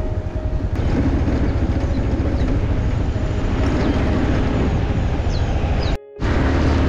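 Motorcycle riding along a road: steady engine noise mixed with wind rush. The sound cuts out for a moment near the end.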